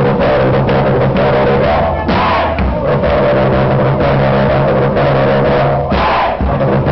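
Live rock band playing loudly: electric guitar, bass and drums, with a singer's vocals on the microphone.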